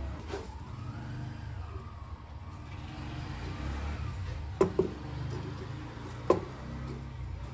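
Sharp knocks of boiled eggs being set down in an aluminium pressure cooker: two quick knocks past the middle and a third about a second and a half later, over a steady low hum.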